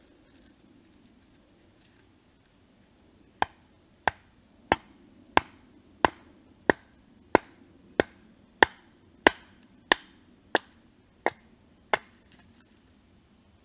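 Schrade SCHF-37 knife being batoned down through a short log round: about fourteen sharp knocks of wood on the blade's spine, evenly spaced about one and a half a second, starting a few seconds in, as the round splits.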